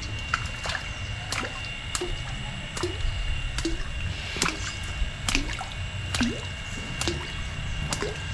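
Water dripping and plopping in irregular small drops and clicks, over a steady high thin tone.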